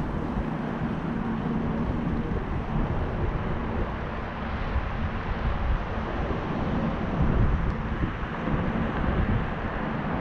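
Wind buffeting the microphone of a moving bicycle ride, over a steady rolling noise with a faint low hum.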